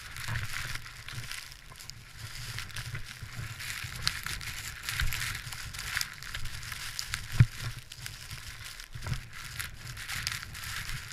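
Ice axe picks striking and crunching into frozen snow and turf: a run of irregular sharp impacts, the loudest about seven seconds in, over a steady hiss and low rumble of wind on the microphone.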